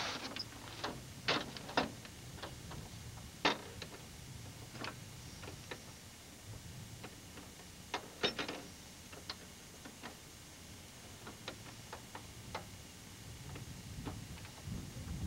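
Muskrat trap and its chain being handled against the boat: irregular sharp metal clicks and clinks, several in the first few seconds, then sparser.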